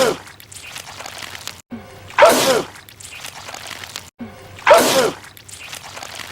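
A man's loud sneeze repeated over and over as an edited loop, about every two and a half seconds: the tail of one right at the start, then two full sneezes, each with a falling cry.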